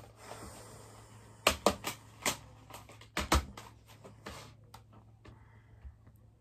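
Plastic CD jewel cases clacking and knocking together as a stack of them is picked up and handled: a soft rustle, then a handful of sharp clacks over a few seconds.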